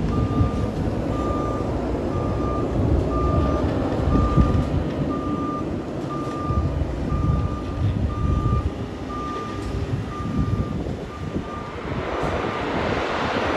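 Concrete mixer truck reversing: its back-up alarm gives a steady run of beeps that stops about twelve seconds in, over the low rumble of the diesel engine.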